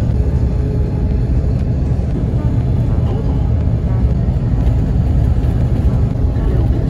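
Steady low rumble of road and engine noise inside a moving long-distance coach bus.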